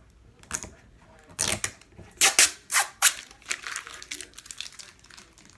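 Plastic rustling and crinkling in a series of short, sharp crackles as items are handled and pulled out, loudest about two to three seconds in.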